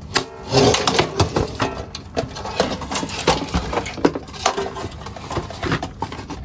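Irregular clicks, knocks and scraping of metal and plastic parts being worked loose while a rice cooker is dismantled with a screwdriver, busiest about a second in.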